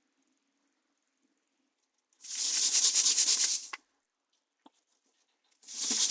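A hedgehog making two rasping bursts of sound, each about a second and a half long and made of rapid fine pulses, one about two seconds in and another near the end.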